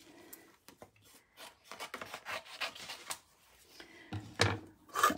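Hands handling metallic cardstock and picking cut paper pieces off a plastic die-cutting plate: soft rubbing and scraping with scattered light clicks, louder about four seconds in.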